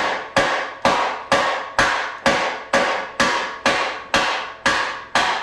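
Steady hammer blows on a steel axle and differential housing, about two strikes a second, each with a short metallic ring.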